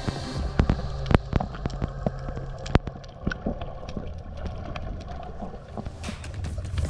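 Underwater sound picked up by an action camera in its waterproof housing: a muffled low rumble with scattered sharp clicks and crackles.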